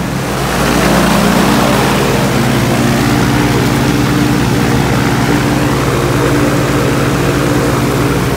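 Viking aircraft engine running steadily at constant speed on a test stand. It is powered from a lead-acid battery alone during an endurance run to see how long it keeps going before the battery gives out.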